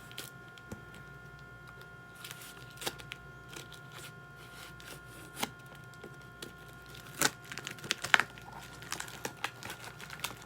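Plastic and paper packaging being handled and unwrapped: scattered soft crinkles and clicks, a sharper crackle about seven seconds in and a quick cluster around eight seconds. A faint steady hum sits underneath.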